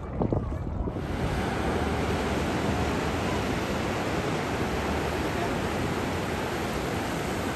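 Steady rush of ocean surf breaking along the shore. For about the first second there is a low wind rumble on the microphone with a few small splashes.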